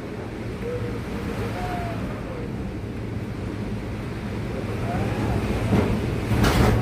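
Hurricane wind roaring and buffeting the microphone, with faint whistles rising and falling; near the end the wind grows louder with a cluster of sharp crackling hits.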